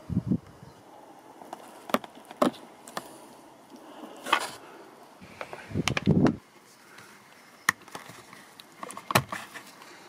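Plastic A-pillar trim of a Mazda CX-5 being pulled off by hand: a series of sharp clicks and knocks as its clips let go and the panel is handled, with a duller thump about six seconds in.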